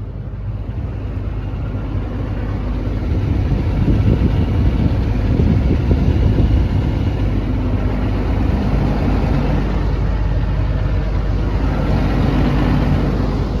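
Cummins diesel engine of an XCMG XE210CU track excavator running steadily, growing louder about three seconds in. It is in good running order, with no blow-by.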